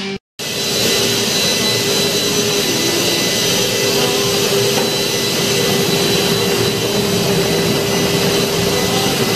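Hot tub with its jets running: a steady motor hum over churning, bubbling water, starting abruptly just after the start.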